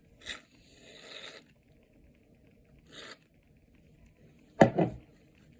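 Short hissing spurts of aerosol shaving cream being dispensed into slime mixture, followed by a brief voice sound near the end.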